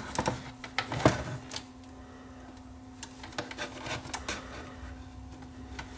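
Light clicks and taps of wire ends and a plug being handled and twisted together, scattered irregularly, over a faint steady hum.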